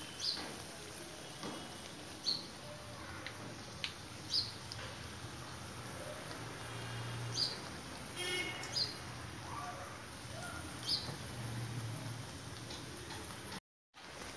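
Besan-battered potato slices deep-frying in hot oil: a steady sizzle with scattered small pops and crackles. The sound cuts out briefly near the end.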